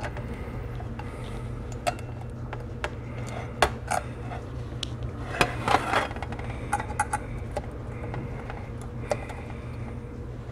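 Irregular sharp metal clicks and clinks of circlip pliers and a steel circlip being worked onto a Lambretta kickstart shaft, busiest around the middle, over a steady low hum.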